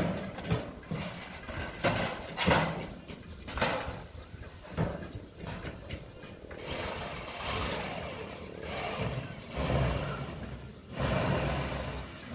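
Irregular knocks and clattering on corrugated steel roof decking, then a steadier mechanical noise from about six and a half seconds in.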